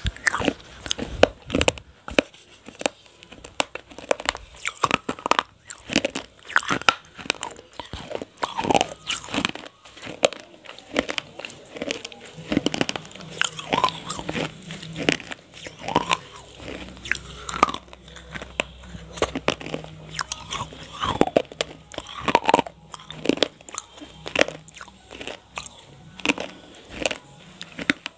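Close-up biting and chewing of roasted clay pot (gullak) shards coated in cream: a steady run of sharp, irregular crunches as the baked clay breaks between the teeth.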